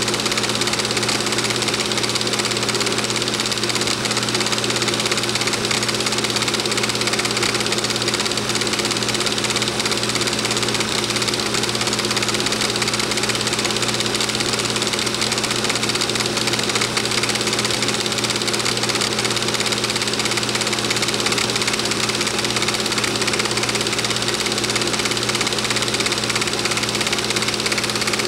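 Film projector running steadily: an even mechanical whir with a rapid, regular clatter from the film transport.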